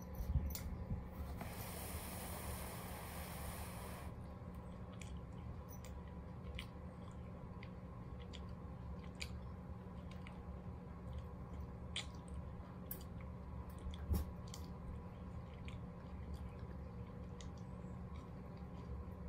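Rottweiler puppy chewing and gnawing a small rubber toy: scattered sharp clicks and taps of teeth over a steady low hum, with a brief hiss for about two seconds near the start.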